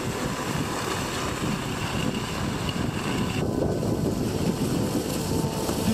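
Wind buffeting the microphone: a loud, even rushing noise with low rumble and faint music underneath. The high hiss drops away about three and a half seconds in.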